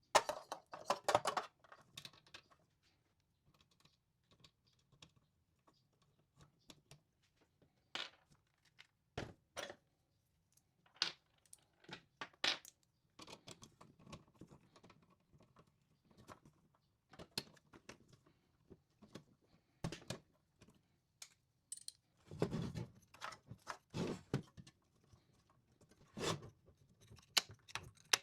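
Irregular light clicks, taps and knocks of small hard parts and tools being handled while a charging module is fitted into a battery-unit chassis, with a busier run of knocks about three-quarters of the way through.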